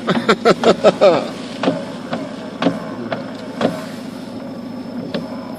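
Car engine running with a steady hum, heard from inside the cabin. A voice gives quick short bursts in the first second, then a few sharp knocks come about a second apart.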